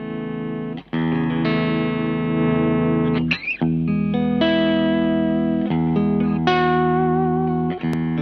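PRS baritone electric guitar played through a Space Sounds Spacecraft Rat-style distortion pedal at low gain: ringing chords with a light, hairy distortion. Partway through there is a brief break, and near the end a held note wavers with vibrato.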